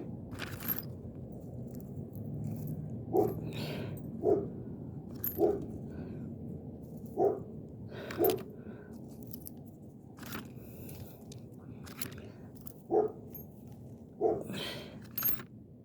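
Loose screws and small nails being picked up off the ground and dropped into a container: a series of short metallic clinks and scrapes at irregular intervals, over a low steady background noise.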